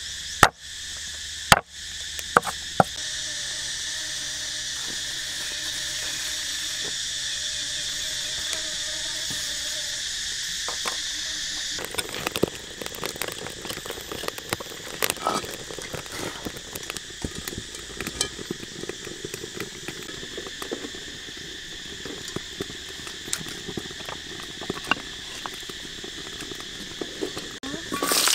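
Steady high-pitched chirring of an insect chorus. A few sharp knocks come in the first three seconds, and from about twelve seconds in there is irregular light crackling and ticking.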